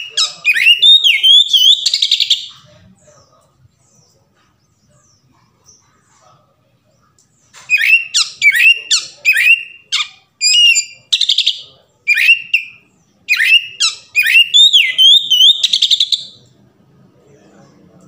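Male oriental magpie-robin singing loud, varied whistled phrases of quick rising and falling notes: a short burst at the start, a pause of about five seconds, then a longer run of song lasting about eight seconds.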